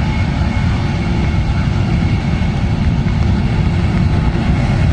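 Jet airliner engines at takeoff power: a steady low rumble that grows slowly louder.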